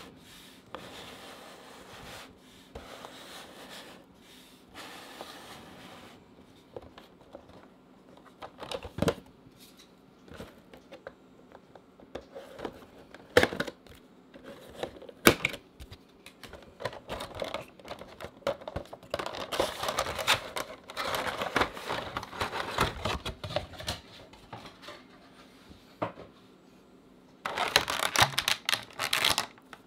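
A boxed Funko Pop vinyl figure being handled and unboxed: soft rustling of the cardboard box, a few sharp taps and clicks, then stretches of crinkling and rustling packaging as the box is opened and the figure taken out.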